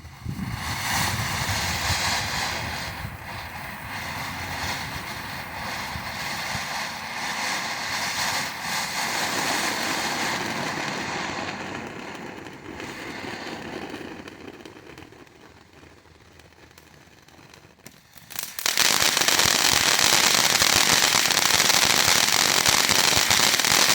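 Great Grizzly Astronut firework fountain going off: it starts suddenly and sprays with a dense hiss that dies down after about 14 seconds. A few seconds later it breaks into a loud, dense crackling, the fountain's crackling-star finish.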